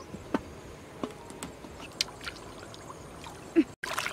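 Hands sloshing and splashing water while washing squid in a metal bowl, with scattered short wet clicks and small splashes, and a denser burst of splashing near the end.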